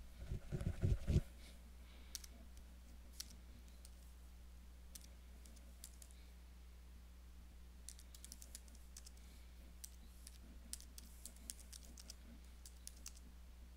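Computer keyboard being typed on: scattered soft key clicks, sparse at first and coming in quick runs in the second half. A short cluster of louder low thumps comes right at the start, over a faint steady low hum.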